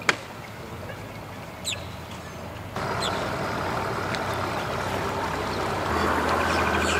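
Mercury OptiMax two-stroke outboard running at idle, pushing a bass boat slowly along. It starts abruptly about three seconds in and grows a little louder near the end. Just before it there is one sharp click right at the start.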